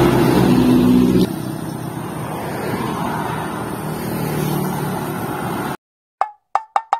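A dump truck's diesel engine running as it drives past for about the first second, then quieter road traffic with tyre noise and a car engine going by. Near the end the sound cuts out and a quickening string of short, pitched pops is heard, an added cartoon sound effect.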